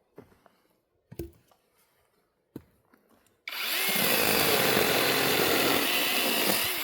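A couple of wooden knocks, then about halfway through a chainsaw suddenly cuts into firewood, running loud and steady with its engine pitch wavering under load.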